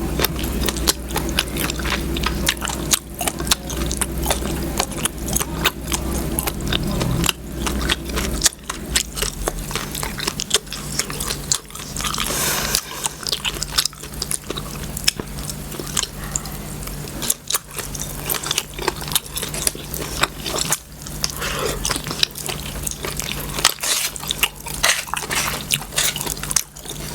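Close-up eating sounds: a person chewing and biting food, with many small wet clicks and smacks, over a steady low hum.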